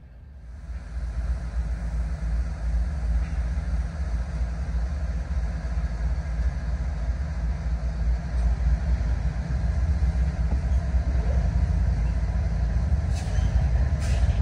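Freight train rolling past, a steady heavy rumble that swells up within the first second and holds, with a couple of faint clicks near the end.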